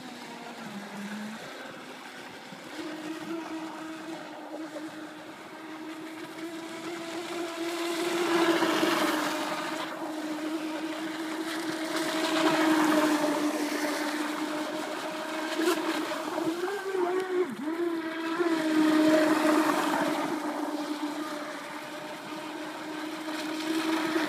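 Aquacraft Motley Crew RC speedboat's brushless electric motor and propeller whining at a steady pitch as it runs on the water. It grows louder and fainter as the boat makes its passes, with a hiss of spray on the nearer ones. It is running on two 2S 5000 mAh packs in series, which the owner finds short of power.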